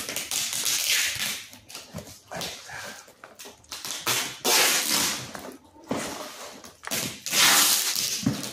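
Clear packing tape pulled off the roll with a tearing screech and pressed onto a cardboard box, in three long pulls: near the start, about four seconds in, and near the end. The cardboard box is shuffled and turned over between pulls.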